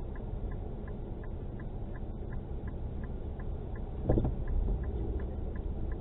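A car's turn-signal relay ticking steadily, about three to four clicks a second, over the low hum of the car idling while it waits at the intersection. A brief thump comes about four seconds in.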